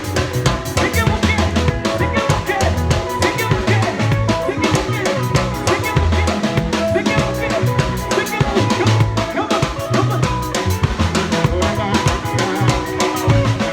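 Live band playing an instrumental passage: a drum kit drives a busy beat of bass drum, snare and rimshots over a moving bass line and sustained melodic parts.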